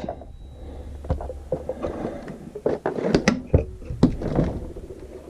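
Scattered knocks and clunks of an RV refrigerator's door, shelves and drip tray being handled, over a low steady hum.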